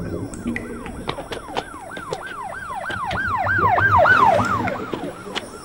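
An emergency-vehicle siren in a fast up-and-down yelp, about three sweeps a second, growing louder to a peak about four seconds in and then fading as it passes. Scattered sharp clicks and a low rumble lie under it.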